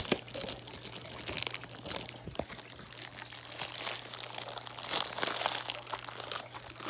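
A thin plastic bag crinkling and crackling irregularly as it is handled and opened, with a sharp click at the very start.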